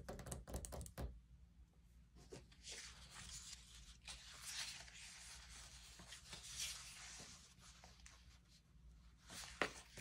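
Quiet rustling of paper sticker sheets being handled, with a few light taps in the first second and a soft, hissy rustle swelling and fading through the middle.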